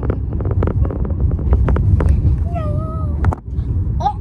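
Car cabin road noise: a steady low rumble with scattered clicks, and a short wavering hum about two and a half seconds in.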